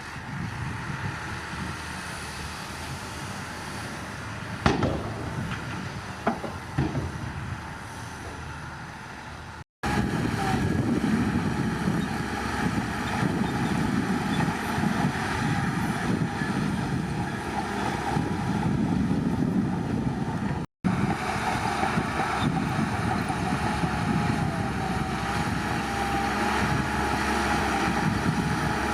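Heavy diesel engine of a Shantui bulldozer running under load, with a few sharp metallic clanks about five to seven seconds in. The sound drops out abruptly twice, and a faint wavering whine rides on the engine near the end.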